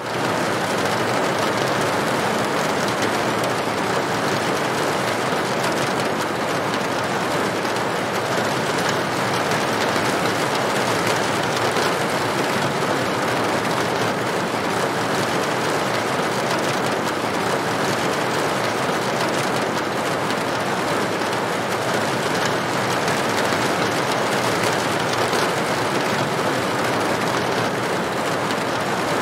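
Steady rain falling on a corrugated tin roof, an even, unbroken patter.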